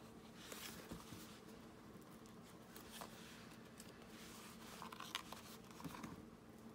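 Faint handling of cardboard and paper during craft work, with a few light clicks and soft rustles over a low steady hum.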